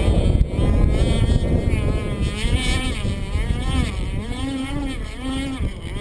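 Motor of an F41 Striker RC racing catamaran running out on the water, its pitch rising and falling over and over as it runs, with wind buffeting the microphone.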